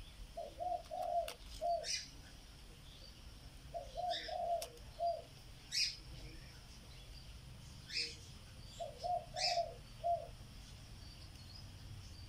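A dove cooing in repeated phrases of three or four low notes, a phrase about every four seconds, with a small bird's single sharp chirps in between.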